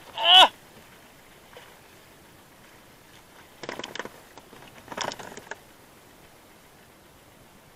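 A short, loud squeak about a quarter-second in, then two brief bursts of rapid splashing and clattering around four and five seconds in, as a hooked skipjack tuna thrashes at the surface while the handline is hauled alongside a small outrigger boat.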